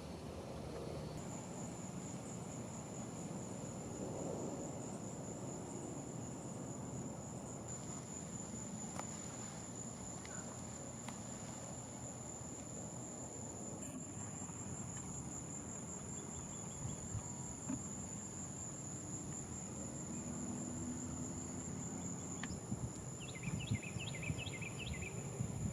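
Evening insects, crickets or katydids, trilling in a steady high-pitched buzz that starts about a second in, with a second fainter high trill above it. Near the end a bird gives a short run of quick chirps.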